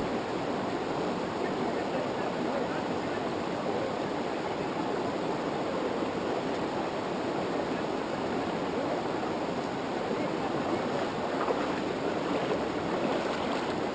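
Mountain river water rushing over rocks in rapids, a steady, even rush.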